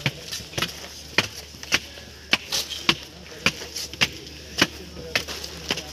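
Footsteps climbing stairs: sharp, even steps a little under two a second.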